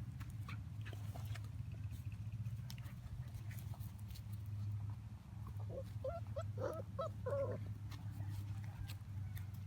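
Belgian Malinois puppy giving a quick run of about six short, high yips about six seconds in, over a steady low hum.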